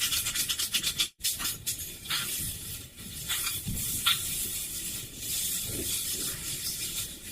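Harsh, effects-processed hissing noise with a few short streaks of sound and a brief cut-out about a second in.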